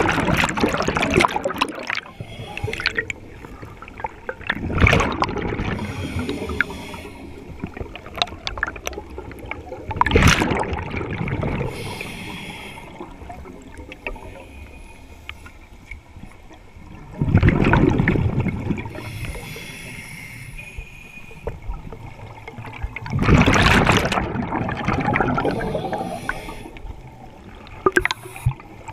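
A scuba diver's regulator breathing underwater. Exhaled bubbles rush and gurgle about every five to six seconds, with the fainter hiss of inhaling through the regulator in between.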